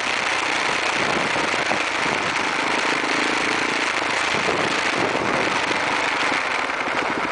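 Steady rushing wind and road noise with a crackling edge, from a camera riding on a moving vehicle through city traffic.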